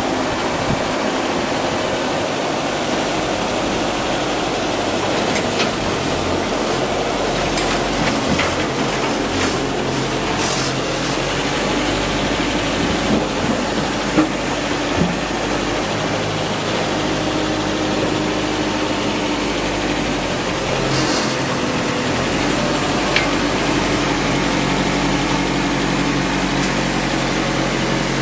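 Crawler rotary drilling rig's engine running steadily, with a few short sharp knocks about halfway through.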